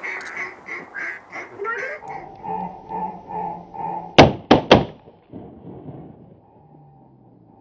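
A run of duck quacks, about two or three a second, then three shotgun shots fired in quick succession about four seconds in.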